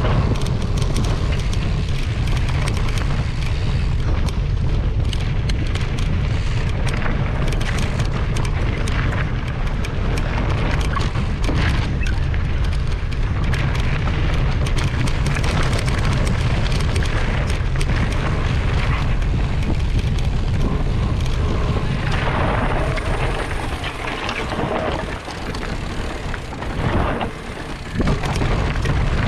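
Wind buffeting an action-camera microphone, a heavy steady rumble full of small knocks and rattles, easing and breaking up briefly a few seconds before the end.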